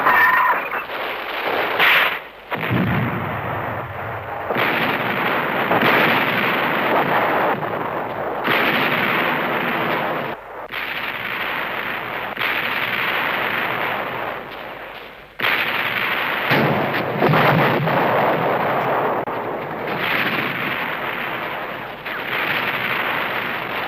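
Battle sounds: artillery fire, gunfire and shell explosions in a dense, continuous din. It breaks off abruptly several times, as between spliced clips.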